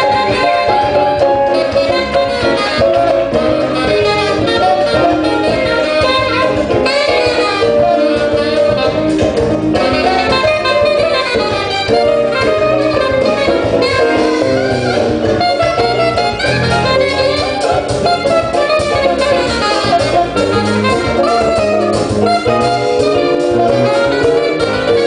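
Gafieira samba band playing live: saxophone and brass over electric guitar, electric bass and drums, in a steady, continuous groove.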